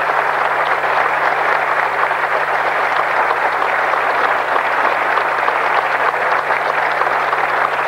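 Audience applauding steadily, a dense even clapping throughout, over a constant low hum.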